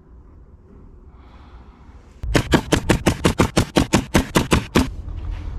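Pneumatic finish nailer firing a quick run of about seventeen shots, six or seven a second, fastening a half-inch plywood side panel to the console frame. The shots start about two seconds in and stop shortly before the end.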